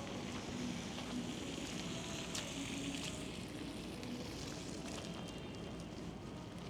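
Outdoor street ambience in a snowstorm: a continuous hiss with scattered small crackles and clicks, and faint pitched sounds in the background.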